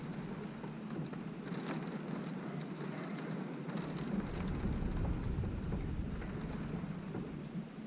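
Wind-driven rain beating on a window: a steady hiss with scattered sharper drop hits. A deep low rumble swells from about a second in, is strongest around the middle, and fades near the end.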